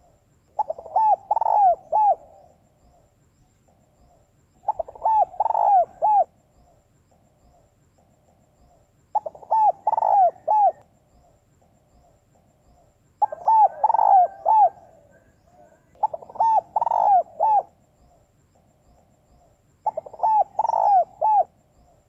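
Female spotted dove cooing: six phrases of several quick hooting notes each, repeated about every four seconds.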